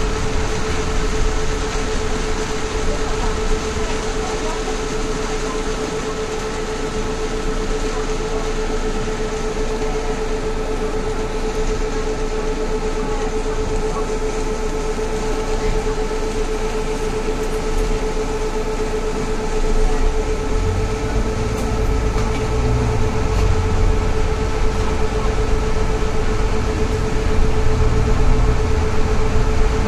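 Cabin noise inside a moving road vehicle: a steady running drone with a constant whine, and a low rumble that gets louder about two-thirds of the way through.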